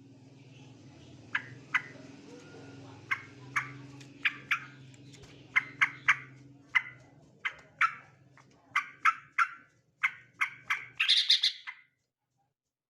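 Male yellow-vented bulbul calling: a run of short, sharp chirps, spaced out at first and coming closer together, ending in a quick cluster of notes about eleven seconds in. A steady low hum runs underneath for most of it.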